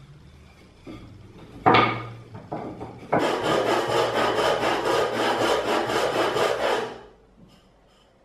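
A single sharp knock of wood, then the end of a pine stick rubbed quickly back and forth on a sheet of sandpaper flat on a wooden workbench: a steady, even scratching of hand-sanding end grain for about four seconds that stops abruptly.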